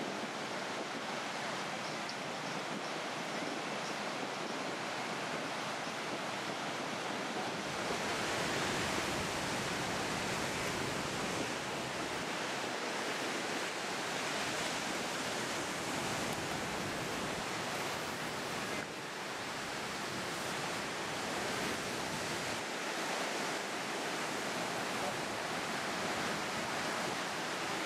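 Ocean surf breaking on the beach, a steady wash of noise, mixed with wind. Through the middle stretch the wind adds a low rumble on the microphone.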